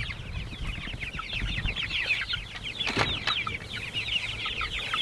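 A flock of young white meat chickens peeping without a break: many short, high, falling peeps overlapping. There is a single knock about three seconds in.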